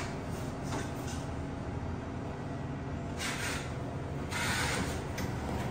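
Steady low hum of a small grocery store's refrigeration, with two short rustling noises about three and four and a half seconds in.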